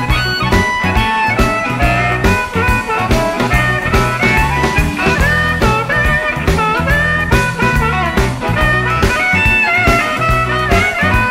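Electric Chicago blues band playing an instrumental passage with a steady beat, a lead instrument bending notes over the rhythm section.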